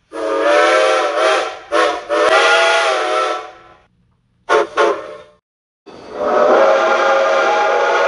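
Steam locomotive chime whistle blowing a chord of several notes. It gives two long blasts back to back in the first four seconds, then two short toots, then a long held blast from about six seconds in.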